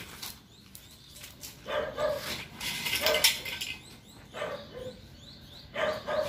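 A dog barking repeatedly, a few short barks starting about one and a half seconds in.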